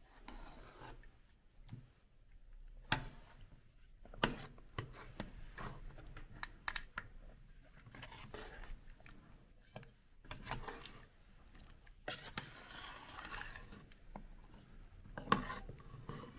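A metal spoon stirs a thick wheat-and-bean soup in a metal pot, scraping against the pot with sharp clicks and knocks now and then.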